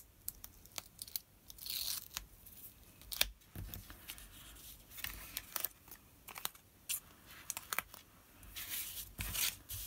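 Paper and card stock being handled by hand: light rustling and scraping with scattered small clicks and taps, and two longer rasping, tearing-like stretches, one about two seconds in and one near the end.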